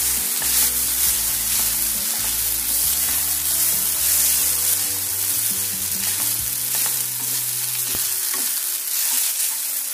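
Soaked, drained vermicelli and vegetables sizzling in a hot non-stick pan while being stirred and tossed with a wooden spatula: a steady frying hiss.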